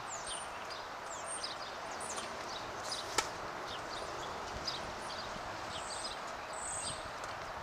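A tennis ball struck once by a racket, a single sharp pock about three seconds in, over a steady outdoor hiss with many short, high chirps from small birds.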